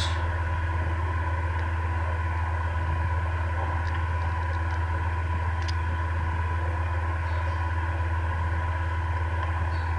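A steady low hum at an even level, with a couple of faint clicks about four and six seconds in.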